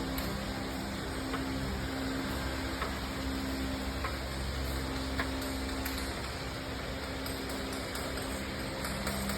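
A steady low mechanical hum with a faint drone, broken only by a few faint clicks.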